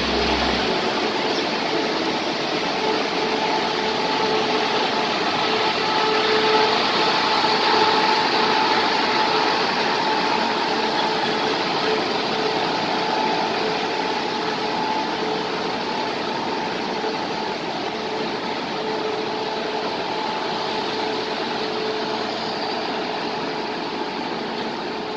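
Passenger train pulling out of the station: a steady running noise with a faint steady hum, slowly growing quieter over the last half as it moves away.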